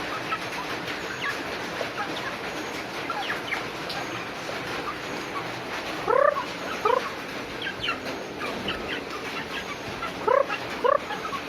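Steady patter of falling rain. Short, loud bird calls cut through it twice, each time as a quick pair, about six seconds in and again near the end.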